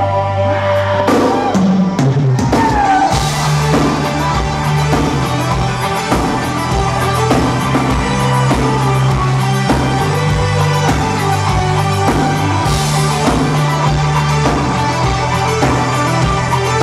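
Live rock band playing an instrumental passage: a steady drum-kit beat with kick drum, bass notes and electric guitars.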